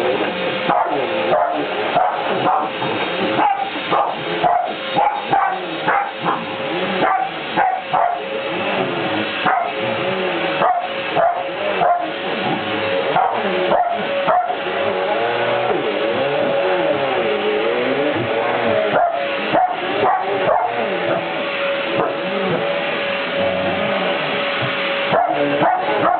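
A corgi barking, yipping and whining over the steady whine of a running vacuum cleaner.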